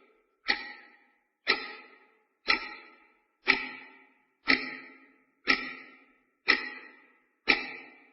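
Clock ticking off the seconds: a sharp tick once a second, eight in all, each with a short ringing decay.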